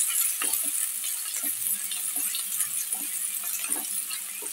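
Chopped onion sizzling in hot oil in a kadhai while a spatula stirs it, knocking and scraping against the pan every second or so. The onion is being lightly sautéed.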